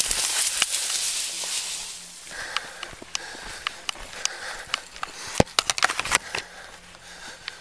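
Leaves and brush rustling against a body-worn camera as the wearer pushes through vegetation, a dense hiss for about the first two seconds. After that come scattered sharp clicks and knocks.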